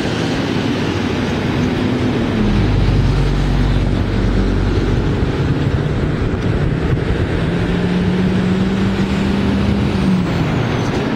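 Diesel locomotive engine working under load as it hauls a cement freight train, its note dropping about two and a half seconds in, then holding a higher steady tone before falling again near the end.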